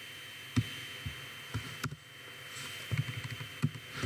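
Scattered clicks and soft knocks of a computer mouse and keyboard in use, clustered a few seconds in, over a faint steady background hiss with a thin high tone.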